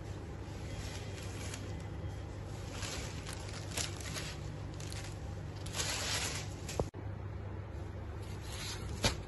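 Tissue Banarasi silk saree rustling in short bursts as hands unfold and handle the cloth, over a steady low hum.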